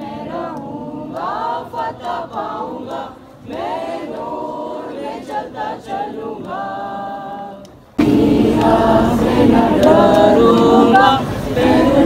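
A crowd singing a hymn together, many voices at once. About eight seconds in the sound jumps suddenly louder and fuller.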